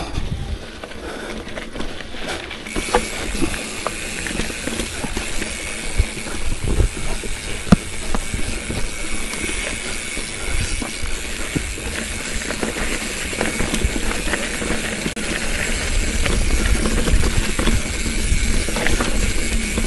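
Bicycle being ridden over a rough trail: tyres rolling on a loose, bumpy surface with frequent knocks and rattles, under a steady rushing noise of wind on the microphone that grows louder near the end.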